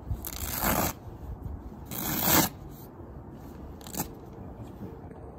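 Velcro strip being pulled off a canvas tent wall in two rips: a long one at the start and a shorter, louder one about two seconds in. A single sharp click follows about four seconds in.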